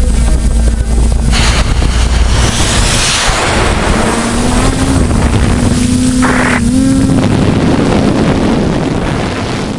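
Multirotor drone's motors and propellers running, with heavy wind noise on its onboard camera's microphone. A steady motor hum comes in about halfway through and edges up in pitch.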